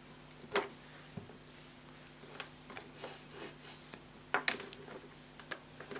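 Light handling noises: a few sharp small clicks and soft rubbing as a metal nail-stamping image plate is handled in its foam holder, over a faint steady hum.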